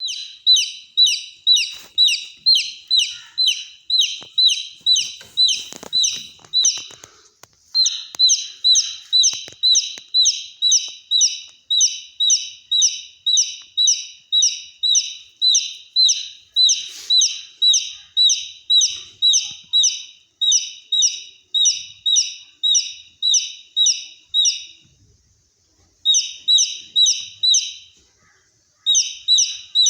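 Baby chick peeping over and over, loud and shrill like a fire alarm: short falling high-pitched peeps, about two a second, stopping briefly a few times before starting again.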